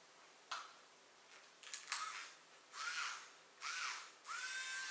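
Battery-powered Dremel rotary nail grinder switched on in two short bursts, each spinning up and winding down, then left running steadily from about four seconds in. It is held against a dog's paw so the dog feels the vibration, not yet grinding a nail. A couple of sharp clicks come before it.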